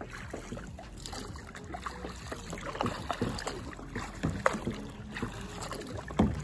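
Double-bladed kayak paddle dipping into river water in steady strokes: irregular splashes and drips, a few louder splashes past the middle.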